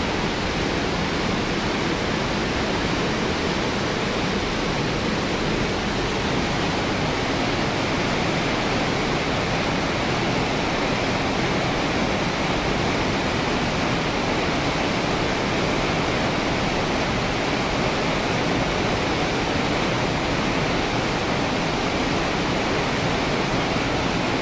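Glacial meltwater torrent rushing and cascading into a rock pothole in a narrow gorge: a steady, unbroken rush of white water.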